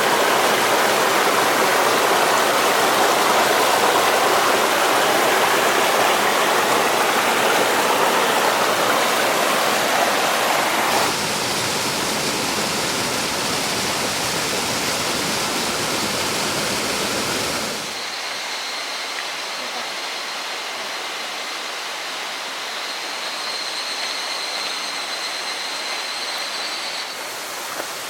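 Steady rushing water of a stream. It drops suddenly in level twice, about eleven and eighteen seconds in.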